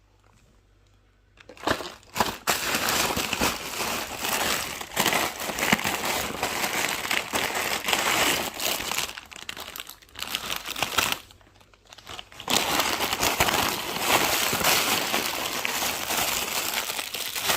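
Packaging being crinkled and crumpled by hand, close up. It is a continuous crackling that starts about two seconds in, stops briefly about two-thirds of the way through, then resumes.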